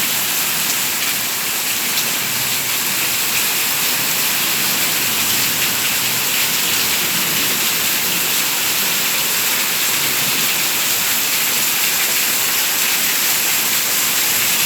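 Rain falling steadily, an even hiss that stays at one level.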